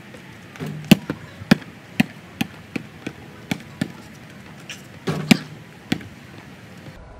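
A basketball bouncing on a paved driveway: a string of sharp bounces about half a second apart, coming closer together as it loses height, then a few more knocks about five seconds in.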